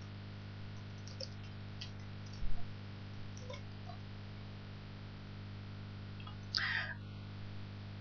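Steady low electrical hum with a few faint computer-keyboard clicks as text is typed. A dull thump comes about two and a half seconds in, and a short hiss about six and a half seconds in.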